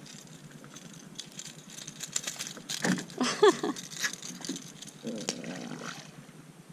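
Close clicking and rubbing from fingers handling a fishing fly and line right beside the microphone, with a short wavering pitched sound about three seconds in.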